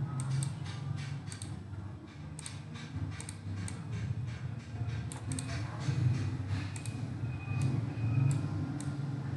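Irregular clicking of a computer mouse and keyboard, often several clicks a second, over a steady low hum.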